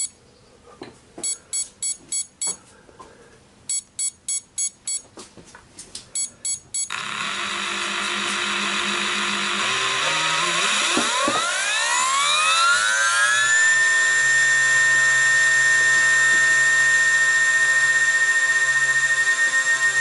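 Quick groups of four or five short electronic beeps, then a milling machine starts up: a steady hiss comes on abruptly about seven seconds in, and the spindle spins up with a rising whine that levels off into a steady high-pitched whine, ready for milling small nickel-silver model-railway frog parts.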